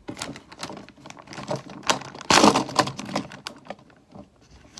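Clear plastic zip-top bag full of die-cast cars being handled and pulled open: rapid small clicks and plastic crinkling, with a louder rustle about two and a half seconds in.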